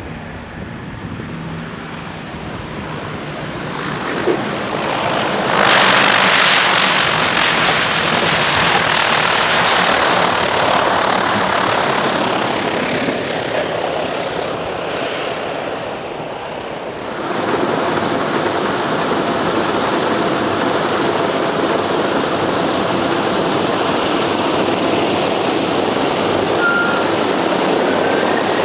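B-24 (PB4Y-1) Liberator's four radial piston engines running, the sound swelling about five seconds in, easing a little, then jumping up suddenly about seventeen seconds in.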